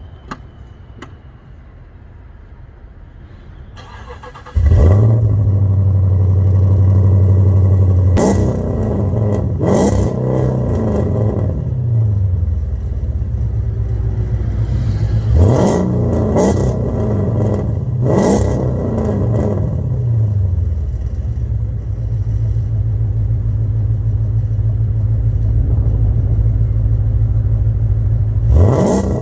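2013 Dodge Durango R/T's 5.7-litre Hemi V8, breathing through long-tube headers, an X-pipe and Borla Pro XS mufflers, comes in loud about four seconds in. It revs up and down several times, the pitch rising and falling, then settles into a steady loud drone.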